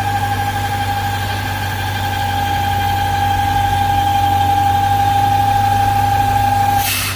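1998 BMW V8 idling with a steady, high-pitched whistle from crankcase pressure, a sound the mechanic calls very characteristic of a faulty PCV valve. Near the end the whistle cuts off with a brief rush of air as the oil filler cap is pulled and the pressure escapes.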